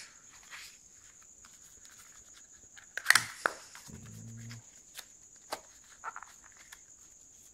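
Small white paperboard box handled and opened by hand: a sharp cardboard snap and rustle about three seconds in, then a few light clicks and rustles of paper packaging. A faint steady high whine runs underneath.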